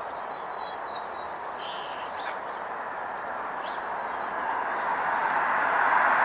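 Small birds chirping, short high calls scattered over a steady rushing background noise that grows louder over the last two seconds.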